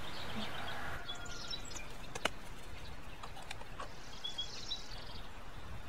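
Small birds chirping briefly twice over quiet outdoor ambience. A single sharp click a little over two seconds in and a few faint ticks come from plants and plastic nursery pots being handled.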